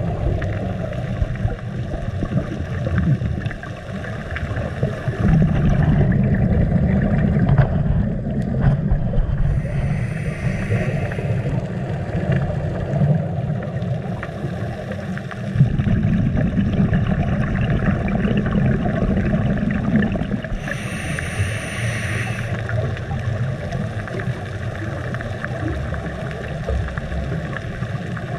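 Muffled underwater rumble picked up through a camera housing while scuba diving. Two hissing, bubbling bursts from a diver's scuba regulator, one about a third of the way in and a longer one about two thirds in.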